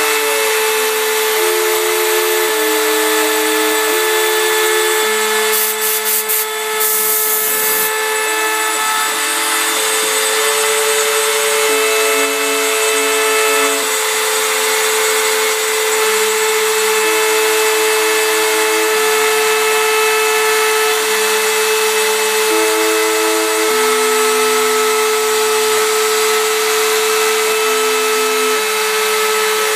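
Homemade CNC router milling a pine board: the spindle runs with a steady hum while the stepper motors driving the axes whine at pitches that change every second or two as the moves change. A brief rush of clicks and noise comes about six seconds in.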